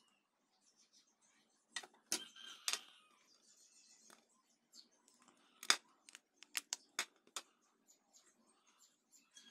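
Small sharp clicks and taps of an 18650 lithium-ion cell, a plastic battery holder with spring contacts and multimeter test leads being handled: a cluster of clicks about two seconds in and another about six to seven seconds in.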